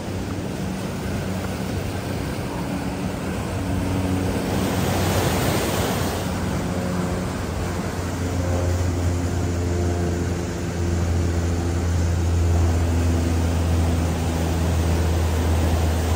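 Axial SCX6 Honcho RC crawler's electric motor and geartrain whirring steadily at crawling speed as it climbs rock, its pitch shifting with throttle. Under it a steady rushing hiss of stream water and wind, which swells briefly about five seconds in.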